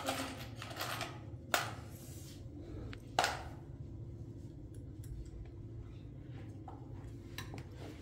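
Two sharp knocks about a second and a half apart, then a few lighter clicks, as objects are handled, over a low steady hum.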